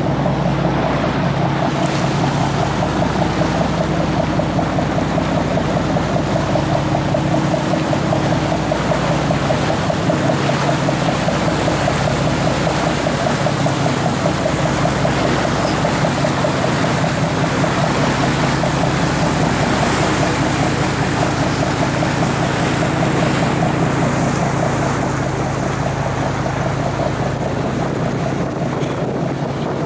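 Fishing boat's engine running steadily while underway: a constant drone with a fast, regular throb, easing off a little near the end.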